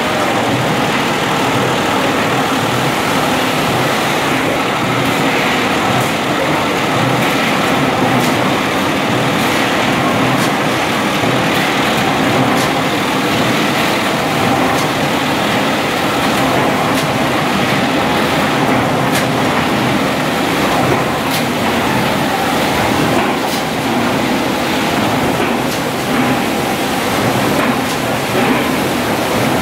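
An 18-litre square tinplate can body line running: a loud, steady din of can-making machinery and conveyors, with scattered sharp clicks and clanks of metal on metal.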